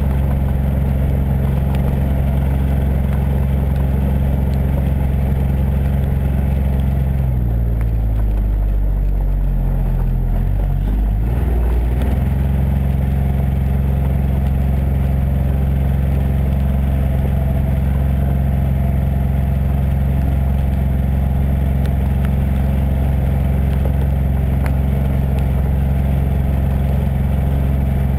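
John Deere Gator 855D utility vehicle's three-cylinder diesel engine running while it drives a dirt track. The engine note stays steady, except for about 7 to 12 seconds in, where it drops and then comes back up as the vehicle eases off and pulls again.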